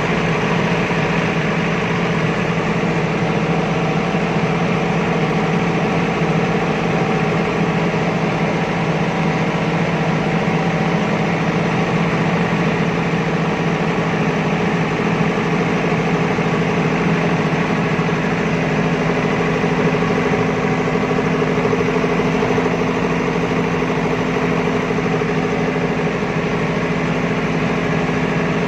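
Diesel generator set engine running at a steady speed, an even, unchanging hum.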